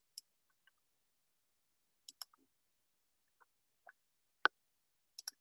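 A few faint clicks and small knocks at a computer, as the slideshow is closed: a pair near the start, a pair just after two seconds, one sharper knock about four and a half seconds in and another pair near the end, with dead silence between.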